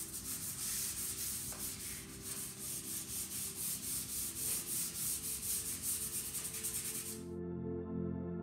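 Hand sanding of a chalk-painted wooden barstool with a sanding pad, in quick back-and-forth scratchy strokes, several a second, that stop abruptly about seven seconds in.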